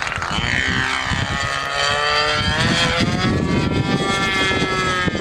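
Radio-controlled model airplane's propeller engine running hard in flight, its pitch dipping and then climbing slowly.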